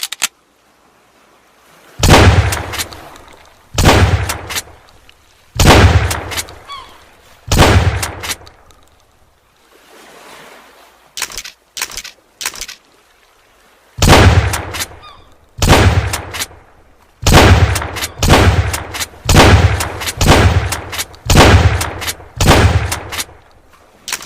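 Mossberg 500A pump-action shotgun firing repeatedly, each shot a sharp crack with an echoing tail. Four shots come about two seconds apart, then a few short sharp clicks about halfway through, then about eight faster shots roughly a second apart.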